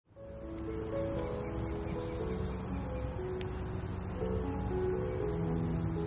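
A steady, high-pitched insect chorus, like crickets trilling without a break, fading in over the first second. Under it runs a slow sequence of soft low notes, like background music.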